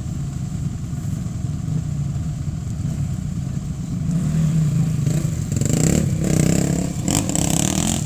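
Idling engines of off-road vehicles and dirt bikes running together as a steady low rumble. About five seconds in, one engine revs up louder.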